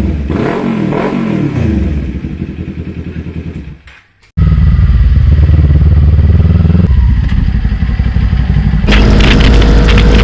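Motorcycle with a new Austin Racing aftermarket exhaust being revved in quick blips that rise and fall, fading out about four seconds in. The engine then runs loud and steady, growing louder and harsher near the end.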